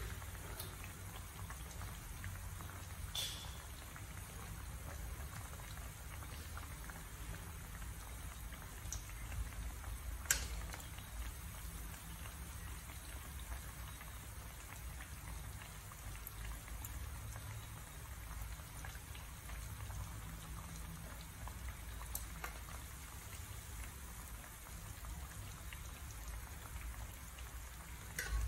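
Fish cakes sizzling in hot frying oil in a metal pan, a steady crackling hiss. A few sharp clicks of metal tongs against the pan come now and then as pieces are turned.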